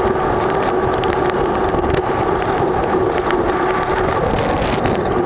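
Tropical storm wind and rain making a steady, loud rushing noise, with the wind buffeting the microphone and faint scattered ticks.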